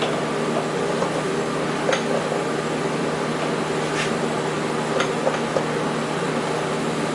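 Steady mechanical hum of machine-shop equipment, with a few faint clicks as the mill table is moved under a dial test indicator.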